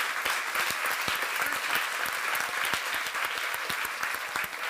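Audience applauding, many hands clapping together, slowly dying down toward the end.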